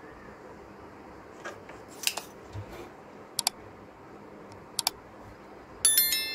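Two quick computer mouse double clicks, then a bright ringing notification-bell chime near the end, the sound effect of a subscribe-and-bell button animation. A couple of light handling clicks come first.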